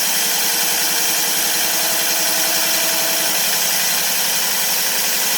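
Ozito PXC 18V cordless cylinder mower's electric motor spinning the reel backwards in backlap mode, the reel blades lapping against the bedknife with 120-grit paste: a loud, steady whirring grind.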